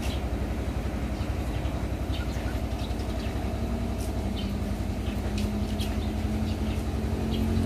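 An engine idling with a steady, fast low throb; a humming note joins in about five seconds in and the sound grows slightly louder toward the end. A few faint short chirps are heard over it.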